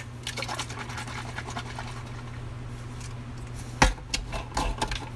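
Plastic spray bottle of soapy water being shaken to make it foam: liquid sloshing and the bottle rattling in the hand, with one sharp knock of the bottle about four seconds in.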